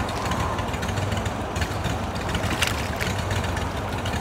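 An engine running steadily, a constant low drone, with a few faint taps over it.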